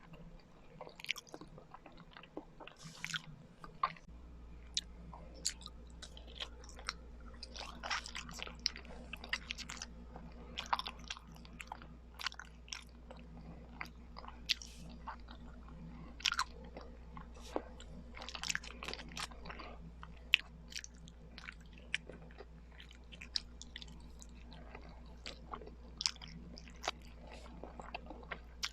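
Close-miked chewing and biting of Filipino kakanin (rice cakes), with many short irregular mouth clicks and smacks. A faint low hum comes in about four seconds in.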